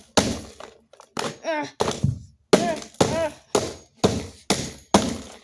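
Repeated blows smashing the plastic housing of an Emerson iPod docking radio, about ten sharp hits at roughly two a second, each with a brief rattling ring.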